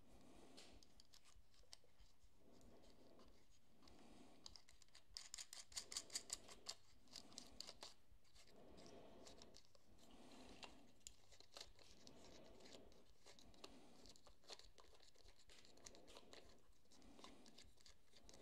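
Faint small clicks and scratches of fingers threading tiny 7/32 nuts onto the terminal studs on the back of a round voltmeter gauge, with a cluster of quick clicks about five to seven seconds in and a few scattered ticks later.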